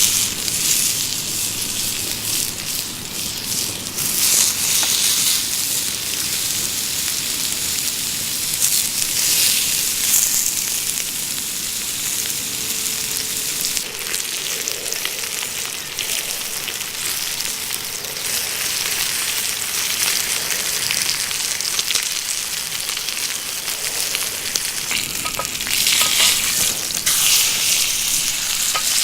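Meat sizzling as it fries over a wood fire, a steady hiss that swells louder several times.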